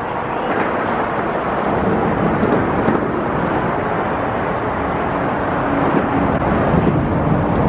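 Outboard motor on a boat running hard with its propeller churning the water, towing a rope snagged on the river bottom; it grows louder in the first second, then holds steady.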